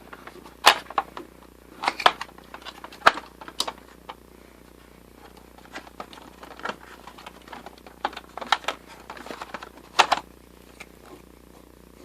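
Irregular sharp clicks and knocks of hard objects, coming in small clusters with pauses between.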